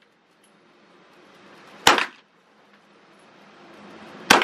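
Two single gunshots at an indoor shooting range, about two and a half seconds apart, each with a short echo off the enclosed range.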